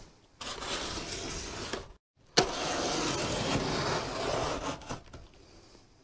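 A cardboard shipping box being opened: scraping and rustling of cardboard and packing, in two stretches broken by a sudden cut, quieter near the end.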